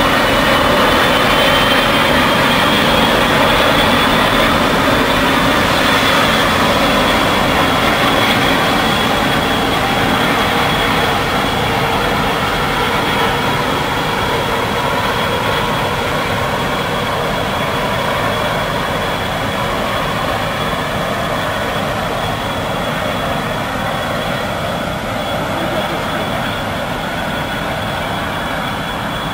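High-speed catamaran ferry's engines running: a dense, steady rumble with a high whine on top that rises slightly at first, then holds, the whole slowly getting quieter.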